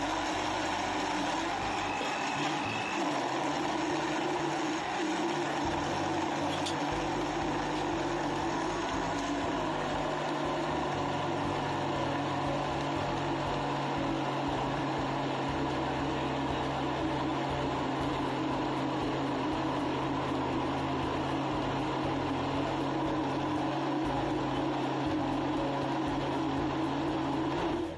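Countertop electric blender running steadily, blending an iced pink fruit drink; the motor stops right at the end.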